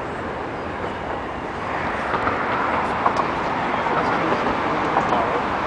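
Steady noise of city traffic, swelling a little about two seconds in.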